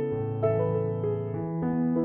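Background music: a slow, gentle piano melody over held bass notes.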